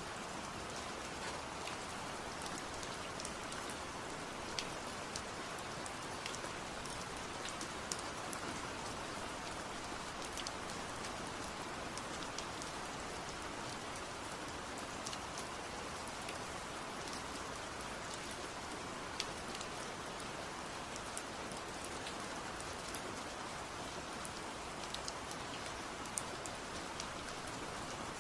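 Steady rain falling, with scattered sharper taps of single drops striking a surface.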